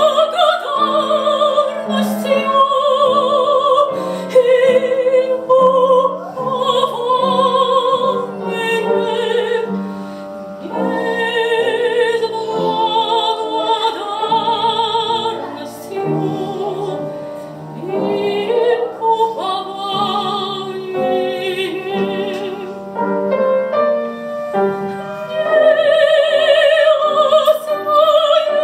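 A woman's classical voice sings a Russian romance over piano accompaniment, holding long notes with wide vibrato.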